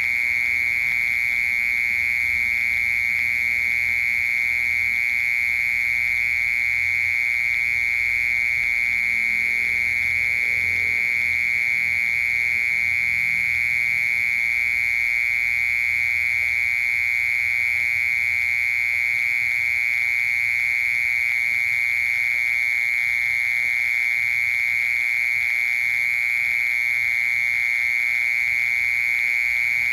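Mole cricket singing: one continuous, unbroken trill, steady in pitch and loudness.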